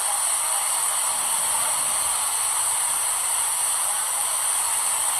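Steady rushing noise of a waterfall, with a bright high hiss on top.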